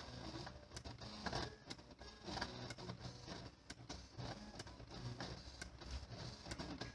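Printer/plotter mechanism running: a steady motor whir with irregular clicks and ticks from its moving parts.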